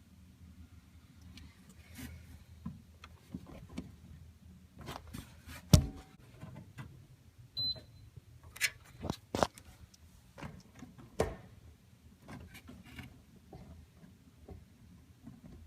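Scattered clicks and knocks of handling at irregular intervals, the loudest a sharp knock about six seconds in, over a faint steady low hum. There is a brief high tone a little later.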